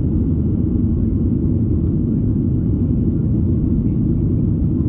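Steady low rumble of a Boeing 737-800's CFM56-7B engines and airflow, heard inside the passenger cabin.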